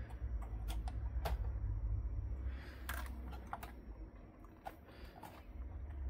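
Irregular light clicks and taps, about eight over a few seconds, as fingers seat 30-pin SIMM memory modules into their sockets on an Atari STE motherboard.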